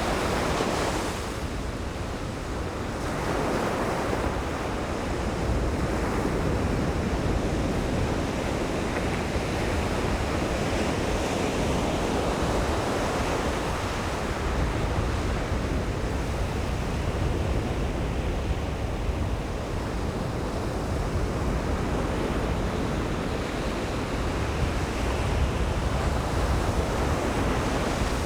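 Ocean surf breaking and washing ashore in a steady, continuous rush that swells and eases in slow waves, with wind rumbling on the microphone.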